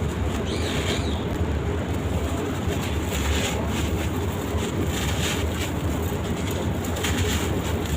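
Gritty sand-cement shapes crumbling and crunching in short, irregular grainy crackles, over a steady low rumble.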